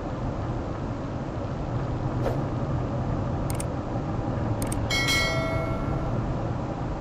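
Steady road and engine rumble of a car driving, as heard by a dashcam microphone inside the cabin. Over it come sharp mouse-click sounds about three and a half and four and a half seconds in, then a short bell chime that rings out for about a second: a subscribe-and-bell-button sound effect.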